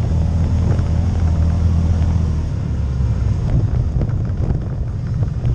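CFMOTO CForce ATV engine running under way, a steady low note that turns less even about halfway through, with scattered knocks and rattles from the machine on the rough trail.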